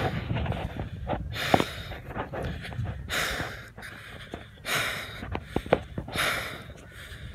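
A man breathing heavily close to the microphone, a hissy breath about every second and a half, over a low rumble.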